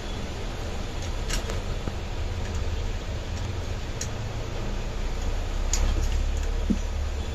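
A few sharp, separate clicks of small metal parts being handled inside an aluminium amplifier housing as a replacement IC is fitted, over a steady low hum.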